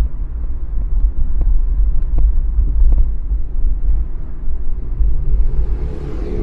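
Car driving on city roads: a steady, loud low rumble of engine and road noise, with a few faint clicks. Near the end a hiss swells and fades.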